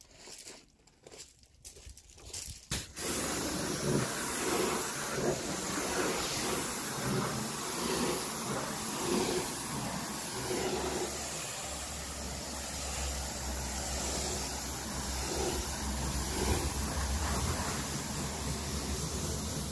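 Pressure washer jet hissing steadily as it rinses a car's side panels, with water spattering onto gravel. The jet comes in about three seconds in after a near-quiet start, and a low steady hum joins about halfway through.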